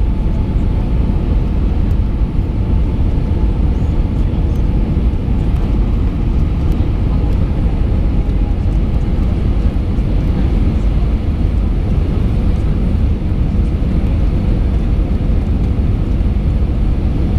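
Steady in-flight cabin noise of an Airbus A319-111 at a window seat: the constant low rumble of its CFM56 jet engines and airflow, with faint steady hums running through it.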